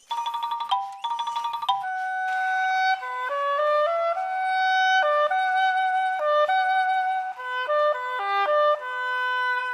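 Cartoon soundtrack music: a woodwind melody of held notes stepping up and down, opening with two quick trilling figures.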